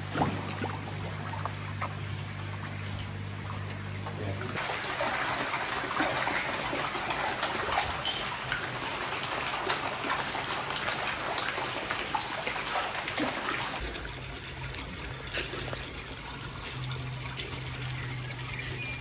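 Water trickling and splashing into a koi pond, louder and more splashy through the middle, over a low steady hum.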